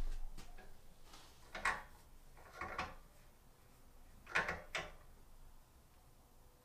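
Drill press table being shifted on its column, giving about four short metal scrapes and clunks.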